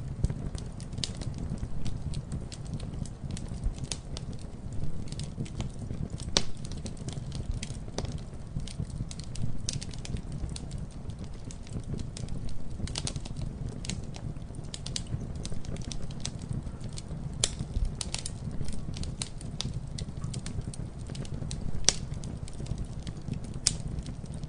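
Wood fire burning with a steady low rumble and irregular crackles and sharp pops.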